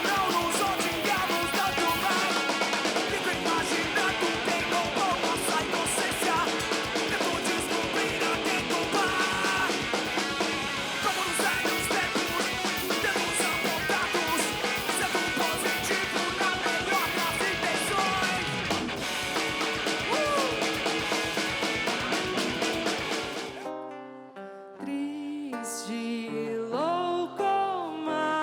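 Live band music without singing: drum kit and electric guitar playing a loud, busy rock passage with a steady beat. About 23 seconds in it cuts abruptly to a quieter, sparser piece with sliding melodic notes.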